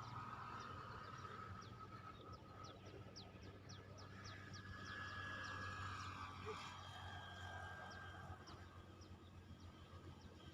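Faint outdoor ambience with short, high chirps repeated two or three times a second, over a steady low hum.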